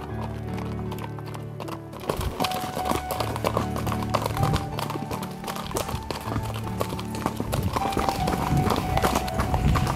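Background music with steady tones, joined about two seconds in by horses' hooves clip-clopping on a dirt trail.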